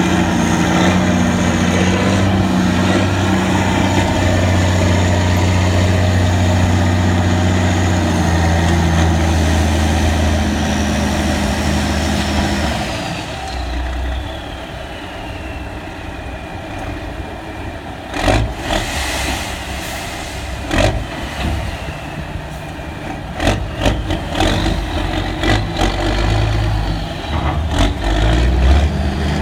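Freightliner dump truck's diesel engine held at raised revs, with a high whine that falls in pitch, then dropping back to a lower idle about halfway through. Scattered knocks and bangs follow over the idling engine, and the engine picks up again near the end.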